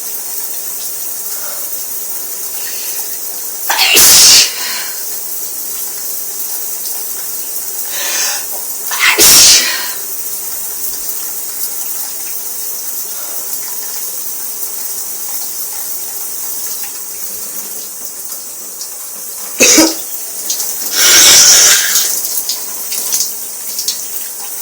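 A person sneezing with a heavy cold under a running shower's steady hiss. There are four loud sneezes: two in the first half, and two close together near the end, the last one longer.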